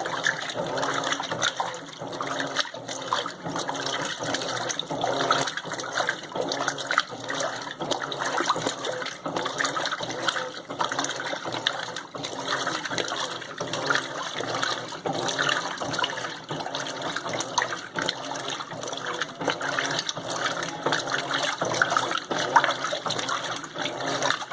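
Water rushing and splashing inside an Electrolux LTM15 washing machine, continuous and uneven.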